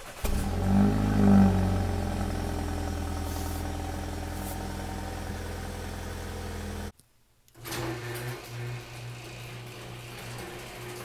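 2016 BMW X1's 2-litre turbocharged four-cylinder starting up, heard close to the exhaust tip: it catches with a rev flare about a second in, then settles to a steady idle, and the sound cuts off about seven seconds in. After that, an electric garage door opener runs steadily as the sectional door rises.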